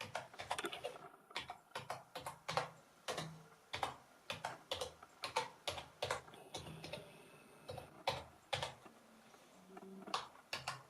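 Typing on an A+ Gaming K5-Bendis keyboard: irregular keystroke clicks, a few a second, with brief pauses between bursts.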